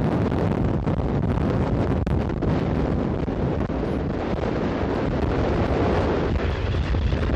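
Strong wind buffeting the microphone: a loud, steady rush of wind noise, heaviest in the low end.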